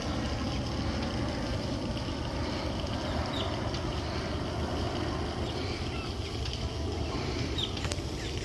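Steady wind rumbling on the microphone, with a few short high bird chirps and a single faint click near the end.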